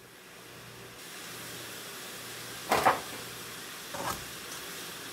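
Steady soft hiss of chicken and vegetables heating in water in a nonstick pan, not yet at the boil, with two short scrapes of a black plastic spatula stirring the pan, a little under three seconds in and again about four seconds in.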